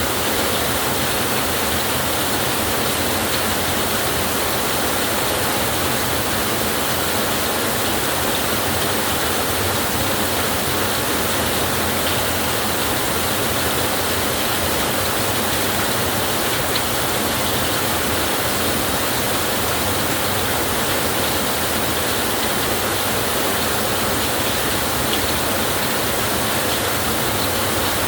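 Heavy rain falling steadily on a tin roof, an even, dense hiss with no breaks.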